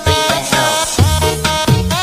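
Background music: an upbeat electronic dance track with a regular drum beat and melodic notes.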